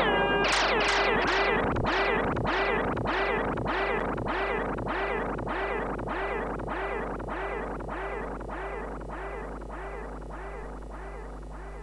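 FM7 software synthesizer playing a repeating electronic note, about five strokes every two seconds, each opening with a quick downward pitch sweep and decaying. The repeats fade gradually, over a steady low hum.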